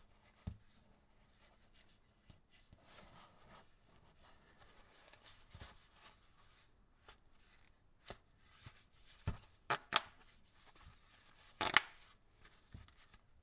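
Cotton-gloved hands handling a plastic over-ear gaming headset: soft rustling and rubbing, then a few sharp clicks and taps in the second half.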